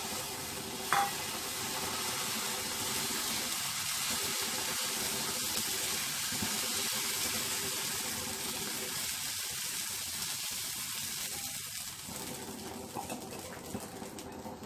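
Spinach dosa batter sizzling on a hot tawa, a steady hiss that eases a little near the end, with a light tap about a second in.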